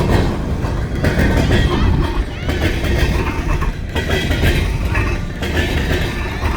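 Norfolk Southern freight train rolling past close by, a steady heavy rumble of wheels on the rails with some clacking and faint high squeals now and then.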